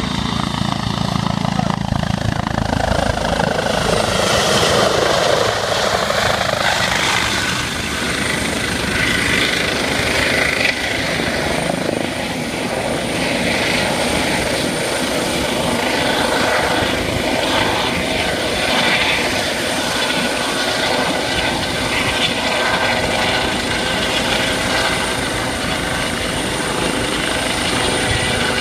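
Eurocopter EC135 air-ambulance helicopter hovering low over open water, its rotors and turbine engines running steadily.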